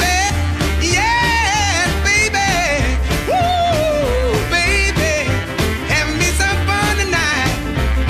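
Background music: a song with a steady bass beat and a melodic line over it.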